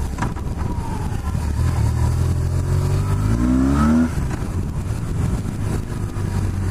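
BMW R1100RS boxer twin engine accelerating, its pitch rising for about two seconds and then dropping abruptly at a gear change, before running on steadily.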